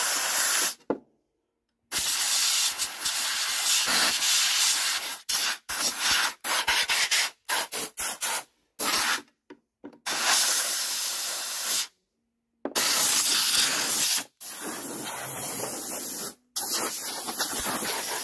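Compressed-air blow gun on a workshop airline hissing in repeated blasts, several long ones and a quick run of short puffs in the middle, blowing grass debris out from around a Briggs & Stratton lawnmower engine's carburettor mount and cooling shroud.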